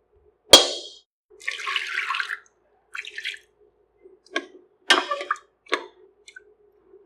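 Kitchen utensil sounds: a sharp metallic clang about half a second in, then about a second of water splashing, followed by several shorter clinks and knocks.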